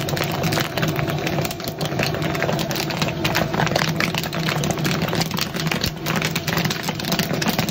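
Popcorn kernels popping in rapid, irregular crackles in a large steel kettle as they are stirred with a paddle, over a steady mechanical hum.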